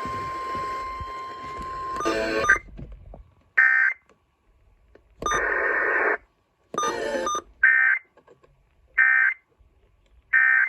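Emergency Alert System SAME data bursts: after about two seconds of hiss with a steady tone, a run of about seven short, harsh electronic data bursts separated by silence.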